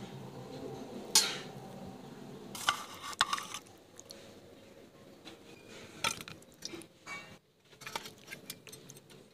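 Steel spoons clinking and scraping against stainless steel plates and a steel bowl as food is served, in scattered single clinks. The sharpest, loudest clink comes about a second in.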